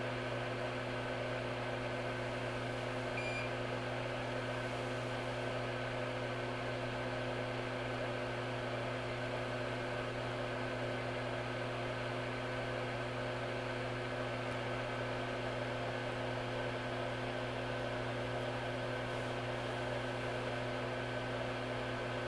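Steady machine hum: a soft even whir with several constant tones held throughout, from equipment running on the repair bench.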